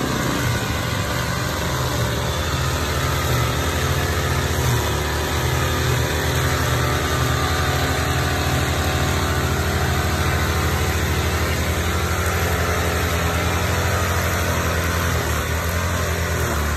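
Small petrol engine of a backpack brush cutter running steadily at an even speed.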